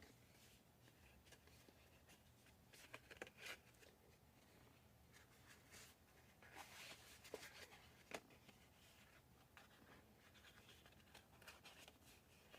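Faint rustling and scraping of card stock as the stiff, sticking sliding panel of a twist-and-turn fun-fold card is pushed by hand, with a few light taps.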